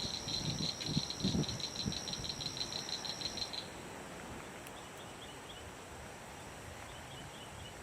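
Insects calling in a rapid, high-pitched pulsing trill with a steady shrill tone above it, which cuts off abruptly about three and a half seconds in, leaving only faint scattered chirps. A few low thumps sound near the microphone in the first two seconds.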